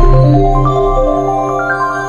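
Instrumental background music: a low bass note held throughout, under quick notes that climb in pitch in runs.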